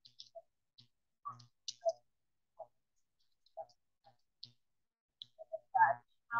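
Choppy fragments of a woman's voice, broken into short bits with near silence between, mixed with scattered sharp high clicks; the loudest voice fragment comes near the end.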